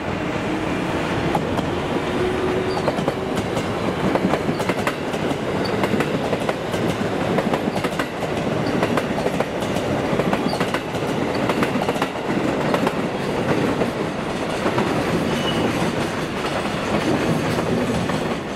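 Passing trains: a JR Freight EF66 electric locomotive hauling container wagons, and a 207-series commuter electric train passing close by. They give a steady rumble, with many wheel clicks over the rail joints.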